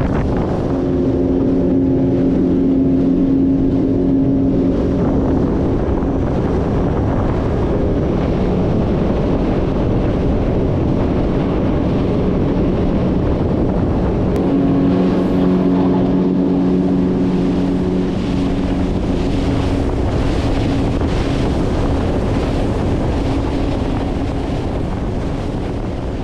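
Outboard motor pushing a small Osprey boat along at speed, a steady drone under the rush of wind and water. The engine's hum stands out most in the first few seconds and again about halfway through.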